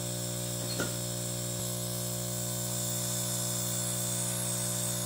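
Electromagnetic linear piston air compressor running on 220 volts, its piston reciprocating with a steady, even buzzing hum as it pumps air into the gauge line.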